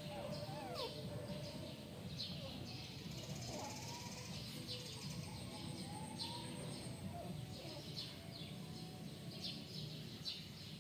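Small birds chirping over and over in the background in short, high, falling chirps, with a few faint, slower sliding whines lower down.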